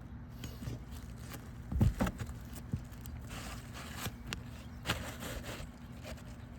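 Asphalt roof shingles being worked by hand: scattered scrapes and crackles, with a dull thump about two seconds in.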